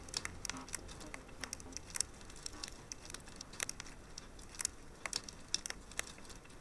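Wood fire crackling: irregular small pops and snaps, several a second, over a faint hiss.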